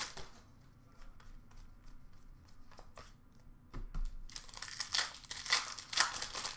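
Upper Deck hockey card pack wrapper being torn open and crinkled: several sharp crackling rips in the second half, after a quieter stretch of light card handling.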